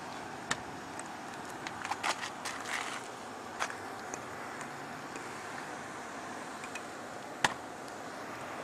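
Scattered light clicks and crackles from clear protective film being handled and pressed onto a truck's grille, over a steady hiss. The clicks bunch together about two to three seconds in, and one sharp click near the end is the loudest.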